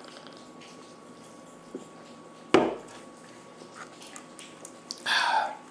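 A soda can knocked down onto a wooden tabletop once, about two and a half seconds in. Small clicks follow, then a short loud rattle near the end as a plastic prescription pill bottle is handled and opened.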